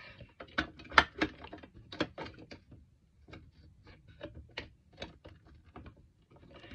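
A run of light clicks and knocks from small packaged bath bombs being handled and knocked against a plastic storage box and tabletop, the loudest about a second in.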